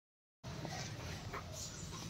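Dead silence for a moment, then faint outdoor background noise with a steady low hum and a few brief, faint high chirps.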